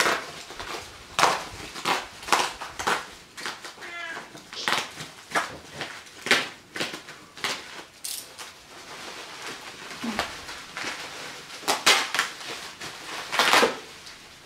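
Plastic bubble wrap crinkling and rustling in irregular crackles as it is cut open and pulled away by hand. A brief pitched sound rises and falls about four seconds in.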